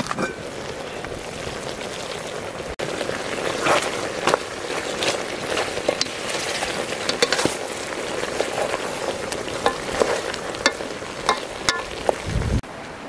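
A metal pot of stew bubbling and hissing over a wood fire, with a wooden spoon stirring and knocking against the pot. The lid clinks as it comes off at the start, and there is a dull knock near the end.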